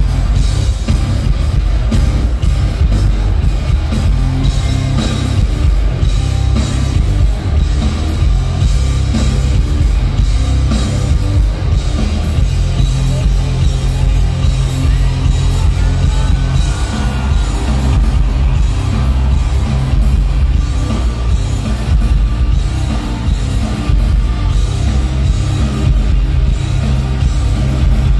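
A rock band playing loudly, with drum kit and electric guitar, heavy in the bass, as heard live at a gig.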